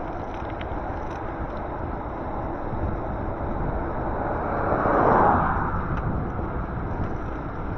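Steady wind and road noise on the microphone of a moving e-bike, with a vehicle passing close by: its sound swells to a peak about five seconds in, then fades away.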